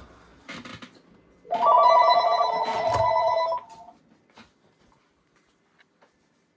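A telephone ringing once on an internal call from another extension: a trilling ring of about two seconds starting about a second and a half in, after a few soft clicks.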